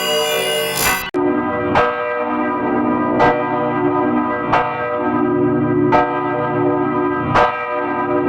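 Church bells ringing. About a second in, one recording cuts off abruptly and another begins: a bell struck about every second and a half, five strokes, its tones ringing on between strikes.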